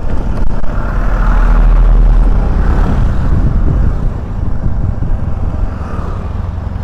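Motorcycle running while being ridden, with a heavy low rumble; it swells about a second in and eases after about four seconds.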